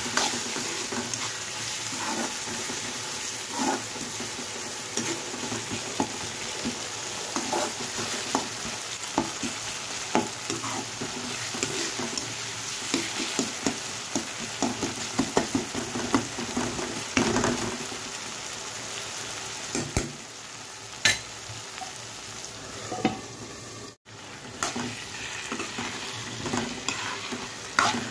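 Onion and tomato sizzling in oil in a black kadai while a steel spoon stirs them, scraping and clicking against the pan again and again.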